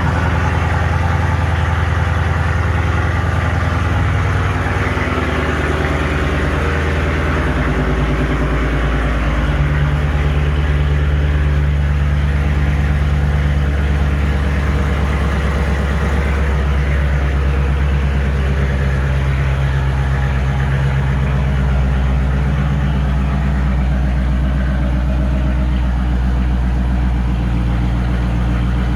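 Straight-piped 2020 Dodge Challenger Scat Pack's 6.4-litre (392) Hemi V8 idling steadily after a cold start, louder than normal after sitting unstarted for a few days. The idle note drops slightly several seconds in as the cold idle settles.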